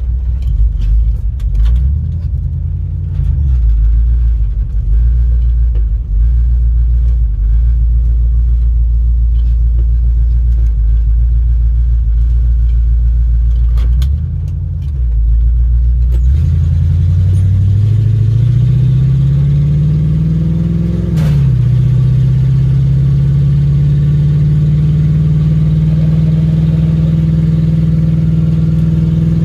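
1965 Ford Mustang fastback's engine heard from inside the car while driving: a steady low rumble at first, easing off briefly about fourteen seconds in. It then revs up with rising pitch for about five seconds, falls back sharply at a gear change, and settles into a steady, higher drone.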